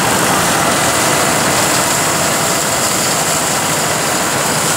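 Steady, dense din of diesel farm machinery running: a John Deere 5310 tractor pulling a seed drill through loose straw, and a combine harvester working nearby.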